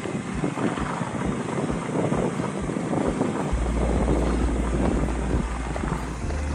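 Mountain bike riding over loose gravel singletrack: a continuous crunch and rattle of tyres and bike over the stones. Wind rumble on the microphone comes in about halfway through.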